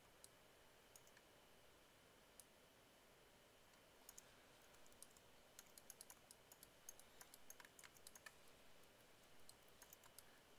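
Near silence with scattered faint clicks of a computer mouse and keyboard, coming in small clusters, over a faint steady high tone.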